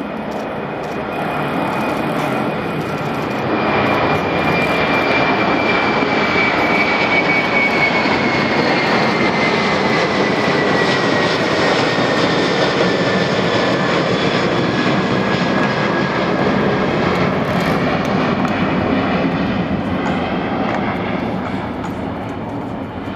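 Airbus A330-300 airliner's jet engines at takeoff thrust as it takes off. The sound builds over the first few seconds, holds, and eases off near the end, with a high whine sliding slowly down in pitch as the aircraft passes.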